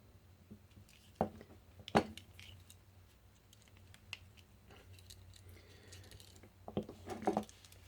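Clicks from a folding Swiss Army-style pocket knife being handled: two sharp clicks, a little after a second in and at two seconds, then a cluster of lighter clicks near the end, as its folding tools are worked.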